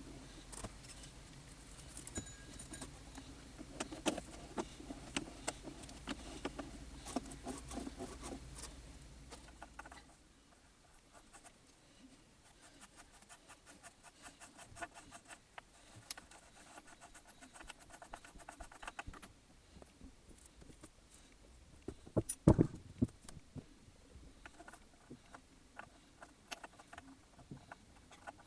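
Small metal tools and parts being handled at a workbench, with scattered light clicks and taps. A low steady hum stops suddenly about ten seconds in, and a few sharper knocks come about two-thirds of the way through.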